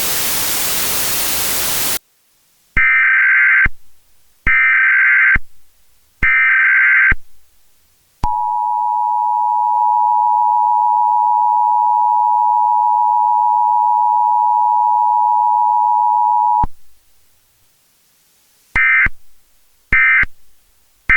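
Emergency Alert System tones. First a two-second burst of static, then three harsh data bursts of the SAME header, each about a second long. Then the steady two-tone attention signal holds for about eight seconds, and short data bursts follow near the end.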